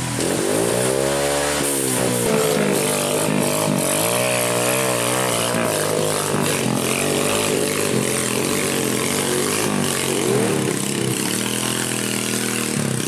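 Off-road trail motorcycle engine revving, its pitch rising and falling again and again.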